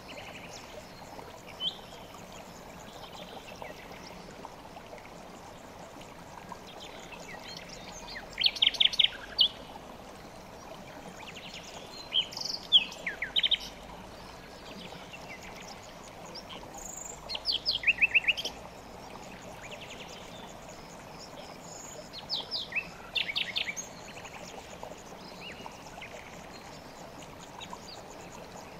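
Mountain stream running steadily, with a songbird singing over it: four short phrases of rapid repeated high notes, spaced some four to five seconds apart.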